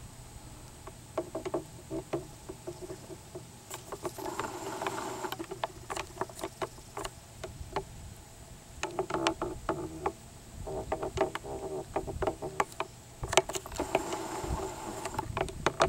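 Footsteps crunching through dry grass and brittle brush, with a run of dry stems crackling and snapping, louder in several bunches.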